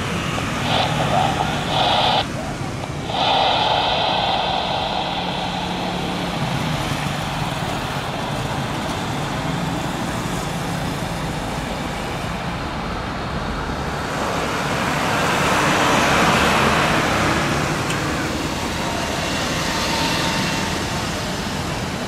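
Airbus A320-200 airliner on final approach and flare, its jet engines giving a steady rushing noise that swells about two-thirds of the way through as the aircraft passes closest.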